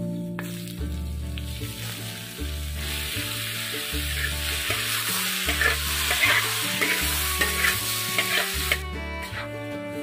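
Sliced wild mushrooms sizzling in hot oil in a wok, with a spatula scraping and stirring them. The sizzle starts about three seconds in and cuts off suddenly near the end. Background music with a steady bass line plays throughout.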